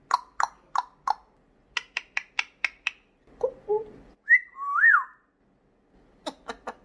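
African grey parrot making runs of sharp clicks, about three a second, then a short low call and two whistles that rise and fall, then a few more quick clicks near the end.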